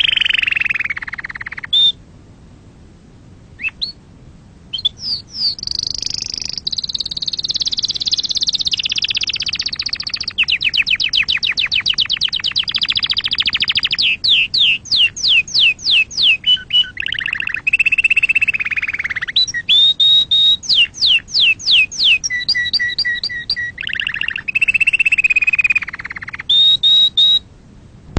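Domestic canary singing a long run of song: a rapid trill, then slower repeated downward-sweeping notes and warbled phrases, with a short pause a couple of seconds in.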